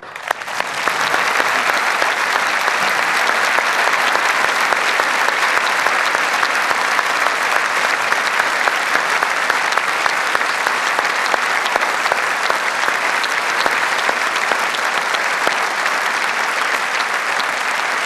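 Large audience applauding, swelling up within the first second and then holding steady without let-up.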